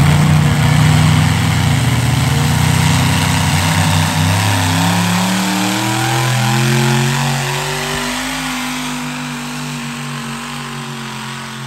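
Modified pulling tractor's supercharged V8 engines running hard under the load of the weight sled. The note climbs in pitch through the middle, then holds and slowly fades as the tractor moves off down the track.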